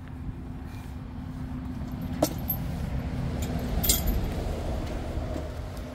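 Two sharp metallic clicks, one about two seconds in and a brighter one about four seconds in, over a steady low rumble.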